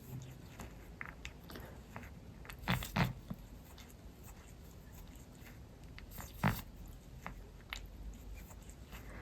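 Cat grooming herself: a run of small licking and nibbling clicks, with three louder short pops, two about three seconds in and one past six seconds.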